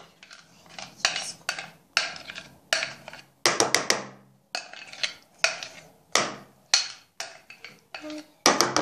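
A spoon scraping and clinking against a bowl of cake batter: repeated short, sharp strokes, one or two a second.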